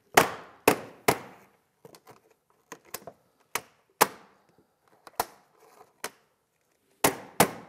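Plastic-headed hammer tapping a window glazing bead into place along the side of the frame. Three sharp taps at the start, lighter irregular taps through the middle, then a quick run of taps near the end.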